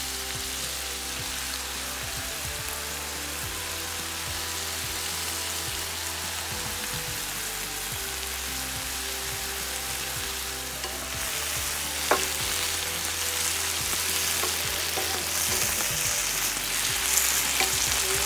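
Broccoli and green pepper sizzling as they stir-fry in oil in a nonstick pan, a steady frying hiss that grows louder in the second half. A few light clicks and one sharp tap about twelve seconds in.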